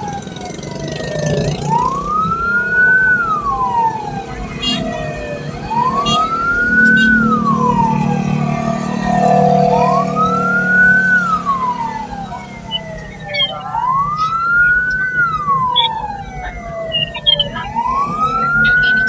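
Siren of an ambulance-type hearse wailing in a slow rise and fall, about one cycle every four seconds, over the low steady hum of the moving vehicle.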